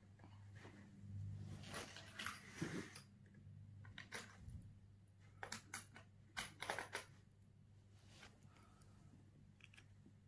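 Quiet room with a steady low hum, broken by scattered small clicks and short rustles of handling, one group about two seconds in and another around six seconds in.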